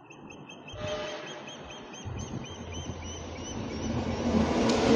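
Rolling thunder: a low rumble that comes in about two seconds in and grows steadily louder toward the end.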